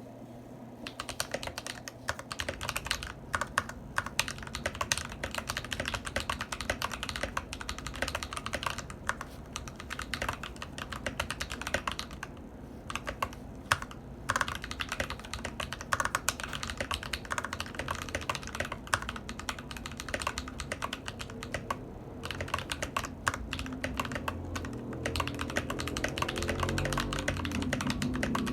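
Typing on a modded Anne Pro 2 mechanical keyboard with lubed Akko CS Lavender Purple tactile switches, a tape mod, foam dampening and lubed, clipped stabilizers. Fast, continuous keystrokes begin about a second in.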